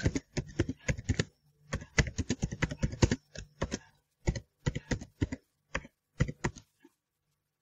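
Keystrokes on a computer keyboard, typing out a line of text in quick runs with short pauses, stopping near the end.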